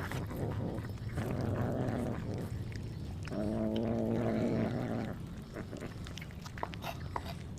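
Kittens making cat vocalisations while feeding on chicken heads: a rough, growly stretch, then one long, drawn-out call of nearly two seconds about halfway through. A few sharp clicks come near the end.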